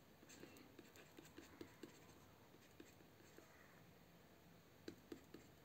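Faint ticks and light scratches of a stylus writing on a pen tablet: a quick run of small taps in the first two seconds, a few scattered ones after, and a couple more near the end, over near silence.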